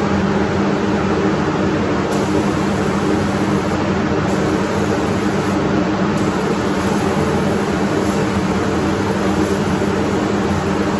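Paint spray booth running with a steady fan hum, mixed with the air hiss of a spray gun laying paint on a car panel.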